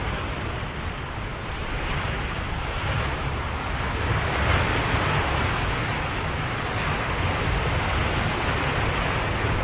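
Ocean surf: a continuous wash of breaking waves, swelling to its loudest about halfway and then easing.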